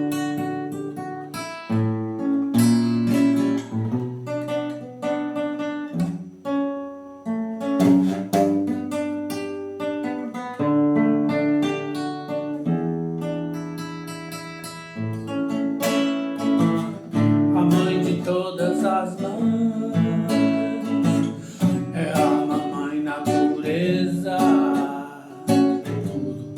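Acoustic guitar playing a plucked, fingerpicked introduction of single notes and chords. About two-thirds of the way in, a wordless singing voice joins over it.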